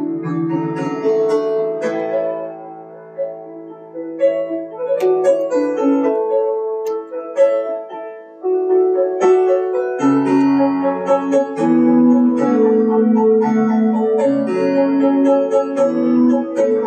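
Instrumental break of a song, led by piano. It plays sparser and softer for the first several seconds, then grows fuller with low bass notes from about ten seconds in.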